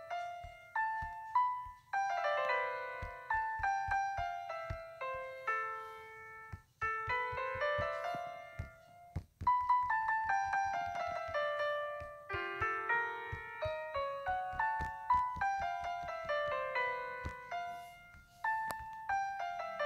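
Background piano music: quick runs of bright notes, mostly falling in pitch.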